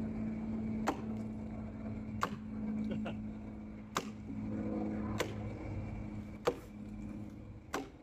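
Sharp cracks of red oak fibres snapping, about seven spread unevenly over several seconds, as a partly split log is levered apart with a peavey.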